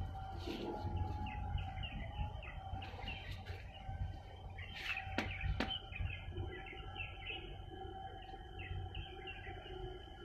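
Birds chirping in many short, repeated calls over a low, uneven rumble and a steady faint hum. Two sharp clicks a little past the middle.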